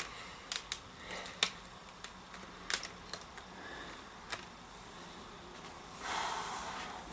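Scattered small plastic clicks and taps from handling a laptop's screen bezel and display panel, with a soft rushing noise about six seconds in.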